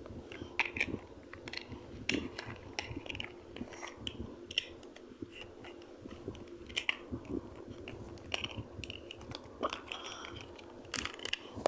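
Lego bricks being handled and snapped together: irregular small plastic clicks and crackles, over a faint steady hum.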